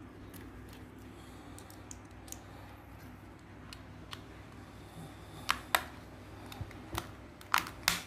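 Plastic case of an air-conditioner remote control clicking and snapping as it is pried apart with a small screwdriver: a few faint ticks, then several sharp clicks in the second half, over a low steady hum.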